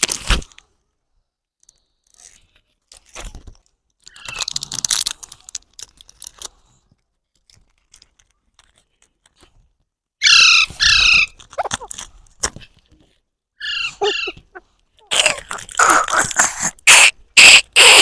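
Baby parrot calling: a few short, harsh pitched squawks about ten seconds in and again around fourteen seconds, then a quick run of sharp clicks and crunches near the end.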